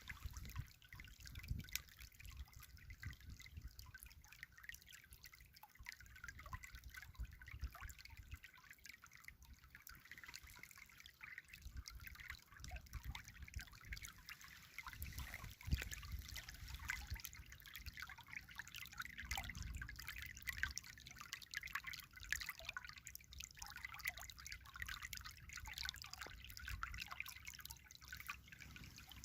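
River water trickling, faint and steady, with a dense patter of small splashes and occasional low rumbles.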